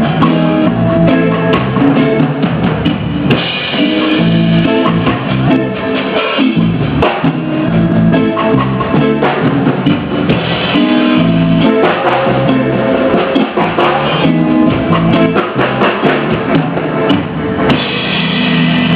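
Band music with a drum kit and guitar playing steadily.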